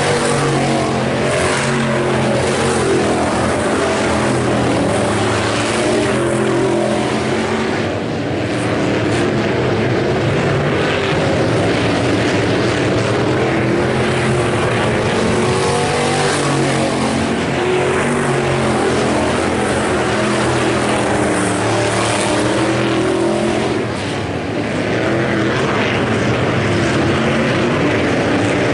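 A pack of IMCA Hobby Stock race cars running on a dirt oval track, several engines at racing speed together, rising and falling as the cars circle, with two short lulls about 8 and 24 seconds in.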